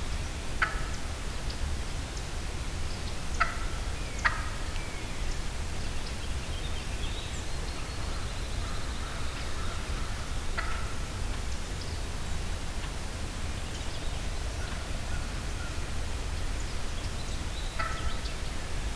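Turkey calling: a handful of short, separate calls spread through, two in quick succession about four seconds in, over a steady low rumble.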